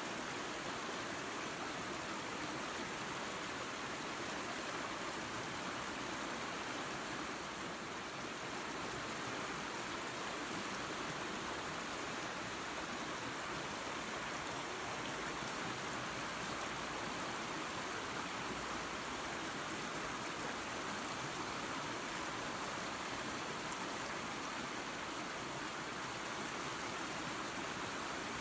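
Small waterfall and creek running water: a steady, even rush and splash with no breaks.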